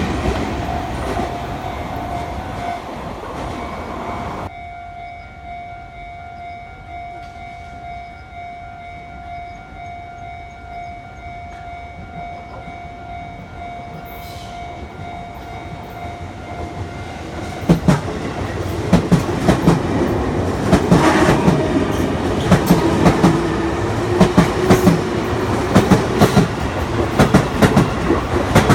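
Sotetsu Line train clattering over the rails while a level-crossing warning bell rings in a steady pulsing tone. The clatter cuts off abruptly about four seconds in, leaving the bell alone. About eighteen seconds in, another train arrives with a rhythmic clickety-clack of wheels over rail joints and a rising motor whine.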